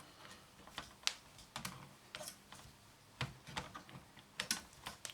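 Irregular light clicks and taps, about ten of them, from hard parts of a satellite set-top box being handled and shifted during its teardown.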